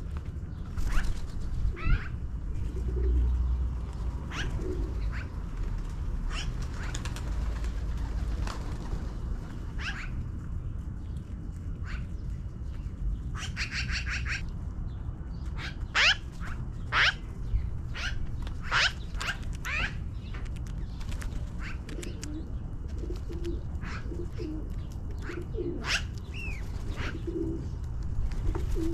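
Magpies calling: many short, sharp calls, with a harsh rattling chatter about halfway through, over a low steady rumble.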